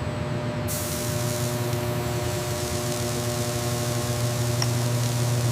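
A steady spraying hiss over a low machinery hum with a few steady tones; the hiss comes in sharply under a second in.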